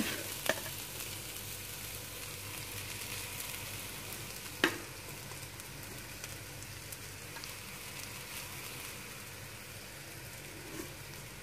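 Boiled rice sizzling steadily in a little oil in a metal pan as a spatula stirs it. There is a sharp knock of the spatula on the pan just after the start and another about four and a half seconds in.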